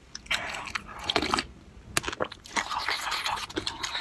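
Close-miked eating: crunchy bites and chewing in an irregular run, with a short pause about a second and a half in.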